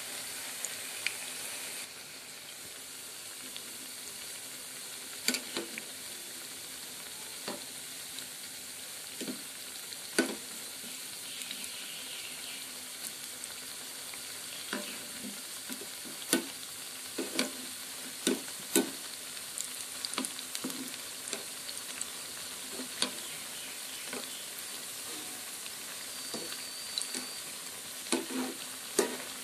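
Jackfruit-seed chops deep-frying in hot oil: a steady sizzle with scattered sharp pops and clicks, and now and then the clink of a metal wire skimmer turning them in the pan.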